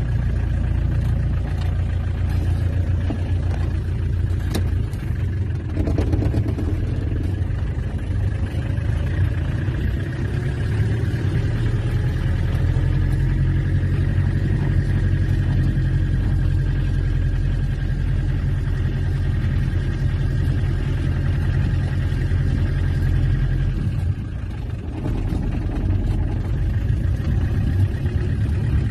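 Peugeot 404 pickup's XD3 four-cylinder diesel engine running steadily under way, heard from inside the cab together with road noise. Near the end the engine note drops briefly and then picks up again.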